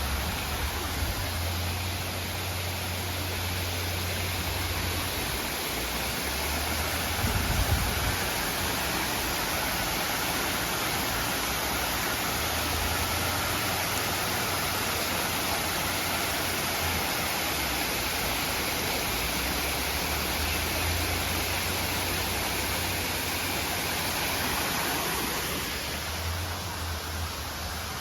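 Waterfall's water rushing steadily, with a low rumble that comes and goes beneath it. The rushing thins out near the end.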